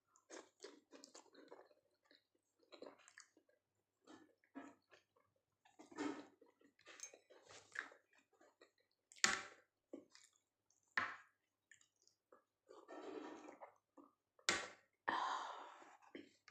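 Close-miked eating sounds: irregular chewing and wet mouth noises from soft food, dal rice with Maggi noodles, broken by three sharp clicks.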